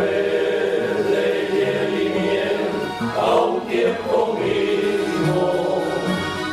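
Background music with choir singing: held chords over a bass line that steps from note to note.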